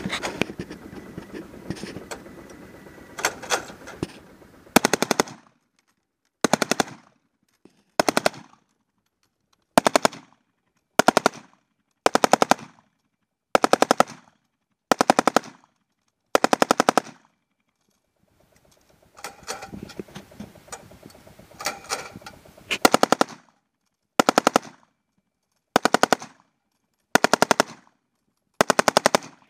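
Browning M1919A4 belt-fed 7.62 mm machine gun firing a string of short bursts, each a quick rattle of a few rounds, about one burst every second and a half, with a pause of a couple of seconds a little past the middle.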